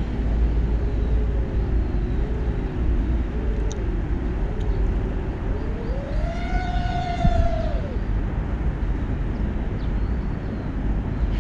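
A 5-inch FPV quadcopter on Foxeer Donut toroidal propellers flying, its motors and props making a low hum whose pitch wavers with the throttle. About six seconds in it rises sharply under a punch of throttle and drops back near eight seconds. It sits over a heavy, steady low rumble.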